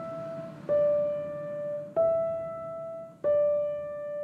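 Slow solo piano background music: three single notes struck about a second and a quarter apart, the last one left ringing.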